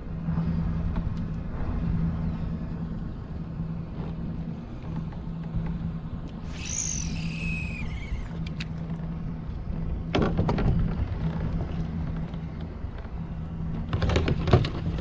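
A steady low hum from the trolling kayak's drive, with water and wind rumble under it. A short high whistle falls in pitch about seven seconds in, and there are a few sharp knocks from handling the rod and reel near the middle and near the end.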